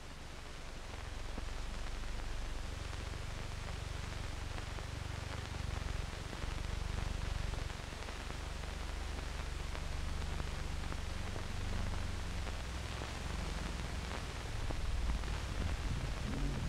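Steady hiss and low hum of an old, worn film soundtrack, with no voice or music on it.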